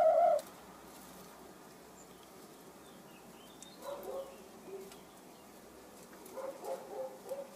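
Hen's long, steady drawn-out call that ends about half a second in. It is followed by soft, short clucks around four seconds and again several times near the end.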